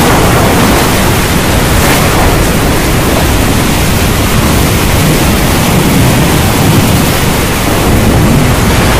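Heavy rain and tyres on a waterlogged road, heard from inside a moving car: a loud, steady hiss of rain and spray.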